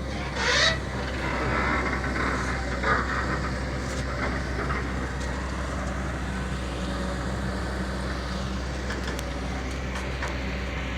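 Earth-moving machinery's diesel engine running steadily with a low hum, with a short high-pitched squeal about half a second in.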